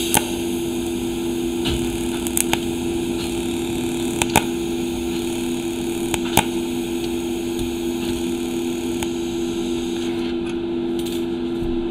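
TIG torch tack-welding a stainless steel exhaust pipe: a steady arc hiss over a constant hum, with a few sharp clicks. The hiss drops away about ten seconds in as the arc stops.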